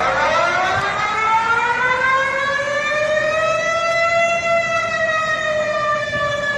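Siren-type emergency alert alarm: a single pitched tone with a hiss beneath it starts abruptly, rises slowly in pitch for about four seconds, then sags slightly.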